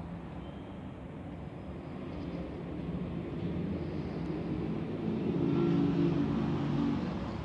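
Low snoring of someone asleep in a lap, growing louder from about two seconds in, loudest near six seconds, then easing off.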